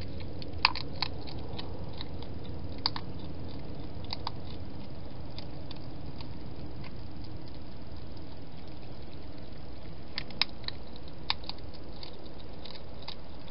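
Wild hedgehog eating at a bowl: scattered sharp crunches and clicks of chewing, a few near the start and another cluster about ten seconds in, over a steady low hiss.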